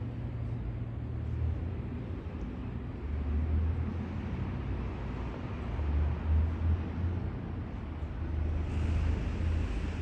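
Steady low rumble of road traffic on the concrete bridge overhead, swelling and fading as vehicles cross, with a brighter hiss of a passing vehicle near the end.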